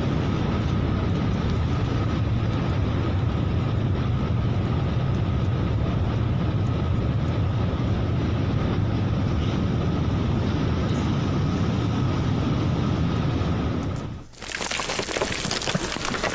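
Steady, deep rumbling roar of a snow avalanche pouring down a mountainside over a road, with a faint steady high tone over it. About fourteen seconds in it cuts off abruptly and gives way to a bright, even hiss.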